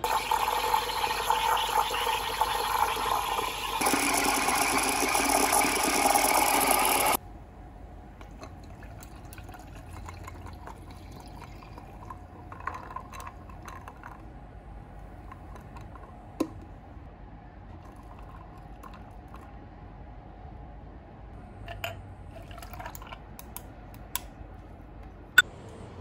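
Espresso machine steam wand hissing into a pitcher of milk as it froths. The hiss shifts in tone about four seconds in and cuts off suddenly after about seven seconds. After that it is much quieter, with scattered light clinks of glassware near the end.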